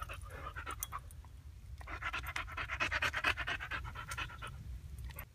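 Boxer dog panting rapidly, the breathing growing louder about two seconds in and easing off near the end.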